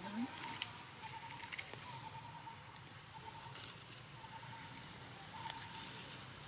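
Outdoor background of insects: a thin, steady high-pitched whine and a lower buzz that keeps breaking off and starting again, with a few faint taps and rustles.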